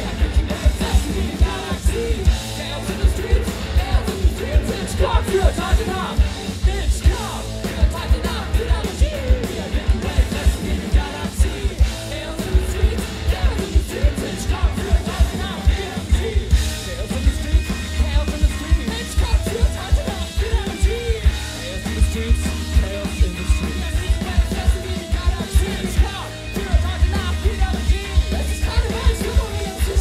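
Live rock band playing at full volume: electric guitar, bass guitar and drum kit with a steady driving beat, and a singer's voice over the top.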